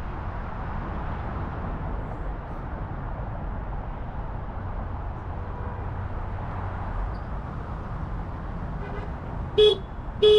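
Steady city traffic and road noise from a drive, then a car horn gives two short toots about two-thirds of a second apart near the end. The toots are the loudest sounds.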